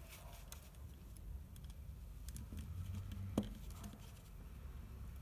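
Faint small clicks and scratching of a screwdriver tip pushing a knot of thin steel cable into a plastic trimmer housing, with one sharper click about three and a half seconds in.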